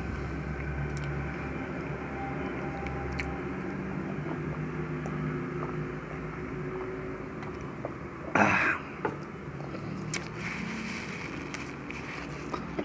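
A man drinking from a plastic cup over a steady low background hum, with a few faint clicks. About eight seconds in comes one short, loud, breathy burst, the loudest sound.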